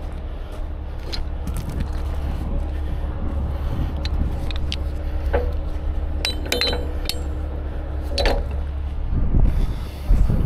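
Steel rigging hardware, a shackle and hooks, clinking and clanking as it is handled, over a steady low rumble, with a few heavy thumps near the end.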